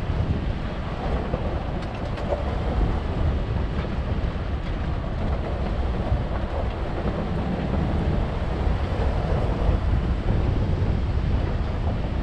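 A 4x4 vehicle driving off-road: steady rumble of engine and tyres, with wind buffeting the microphone.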